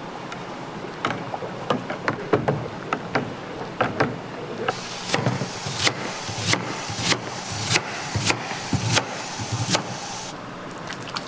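Kitchen utensils striking hard surfaces: a run of sharp knocks, irregular at first, then about halfway through settling into a steady beat of a little under two strikes a second over a faint hiss.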